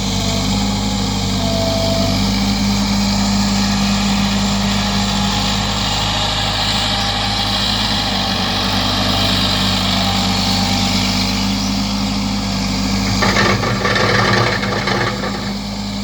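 Diesel engine of an excavator loading soil into a tractor trolley, running steadily, with a louder, rougher stretch lasting about a second and a half about 13 seconds in.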